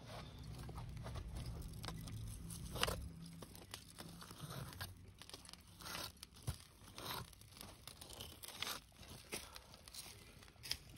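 Scattered scrapes, crackles and clicks of tools working a glowing crucible of molten metal: a wire skimmer stirring the melt and pliers gripping the crucible rim. A low steady hum runs under the first three seconds or so.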